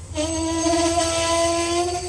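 Locomotive air horn blowing one long blast. It starts suddenly just after the start and holds a steady chord of several notes, easing slightly near the end.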